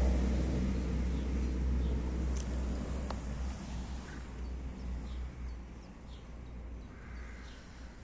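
Outdoor low rumble that gradually fades away, with a few faint short high chirps.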